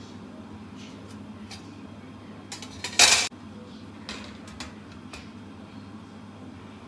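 A metal lidded loaf pan handled on a wire cooling rack: a few light metallic clicks and taps, then one loud metal clatter about three seconds in, lasting about a third of a second, as the pan is knocked and set down to release the loaf. A steady low hum runs underneath.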